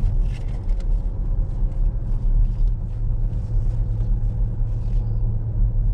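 Steady low rumble of engine and tyre noise heard inside the cabin of a moving car.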